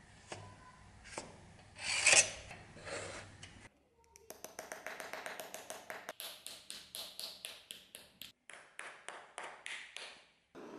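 Hand metalworking on brass: a tool scratching along brass sheet, with one loud scrape about two seconds in, then a long run of quick, light hammer taps on a small brass piece, then a hand file rasping across the brass in short strokes, about four a second.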